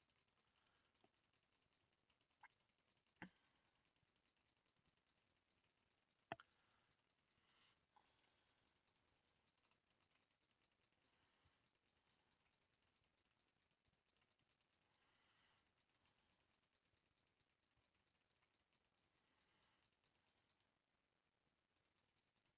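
Near silence with faint computer keyboard clicks; two sharper clicks stand out about three and six seconds in.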